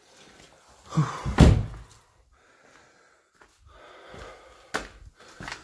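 A heavy thump about a second in, then lighter knocks twice near the end: things being knocked and handled in a workshop.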